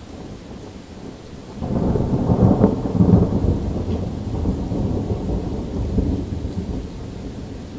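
Thunder breaks about a second and a half in and rumbles on for several seconds, slowly fading, over steady rain.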